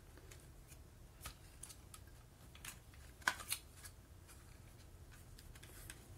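Light clicks and taps of a Toshiba Walky KT-RS1 cassette player's casing being handled and turned over in the hands, the sharpest two in quick succession a little over three seconds in.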